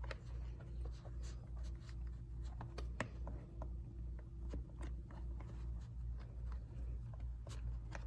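Faint scattered clicks and rubbing of plastic cup holder parts being handled as a rubber retaining band is hooked into its grooves, over a low steady hum.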